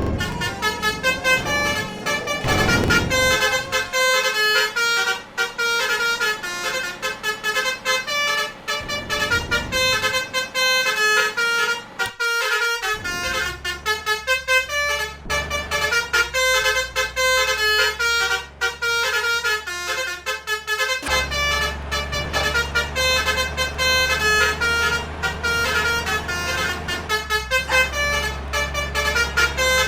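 Indonesian bus basuri multi-tone air horns playing a quick 'telolet' tune of short notes at changing pitches. A steady low hum comes in about two-thirds of the way through.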